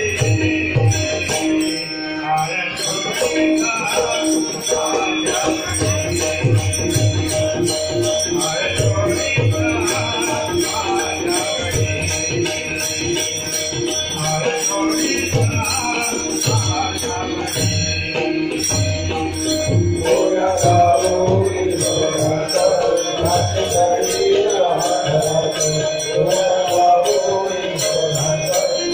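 Marathi abhang bhajan: a devotional group singing, with small hand cymbals jingling and a drum keeping a steady beat. The voices grow stronger in the last third.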